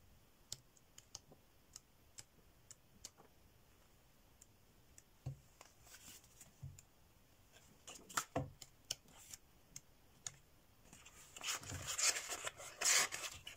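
Pages of a cardstock paper pad being leafed through by hand: faint scattered clicks and taps at first, then louder papery rustling and swishing as the sheets turn near the end.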